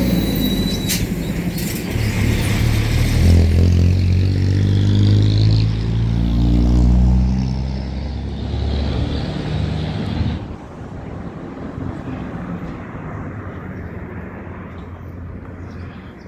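A motor vehicle's engine running close by, loudest in the first half, then fading away. The sound drops off sharply about ten seconds in.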